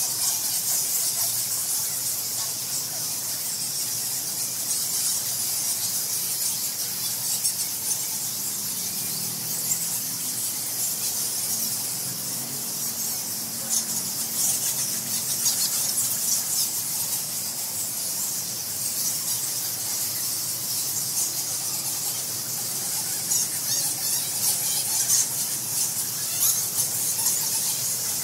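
A roosting colony of bats squeaking continuously: a dense, high-pitched chatter of many short calls overlapping at once.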